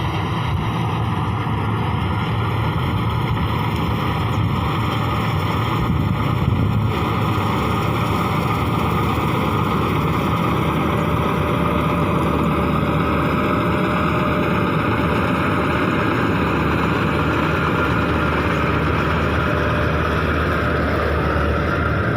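Virat 982 combine harvester running steadily during wheat harvesting, an even, continuous mechanical noise with no change in pace.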